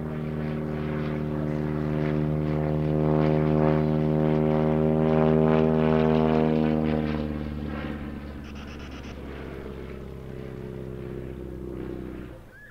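VL Viima II biplane's seven-cylinder Siemens-Halske Sh 14 radial engine and propeller in flight: a steady droning tone that grows louder over the first few seconds, then fades as the plane passes and climbs away, and stops abruptly near the end.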